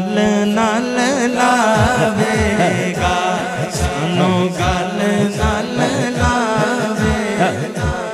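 Male voice singing a naat in long, wavering held notes through a microphone. A regular low beat comes in underneath about two seconds in.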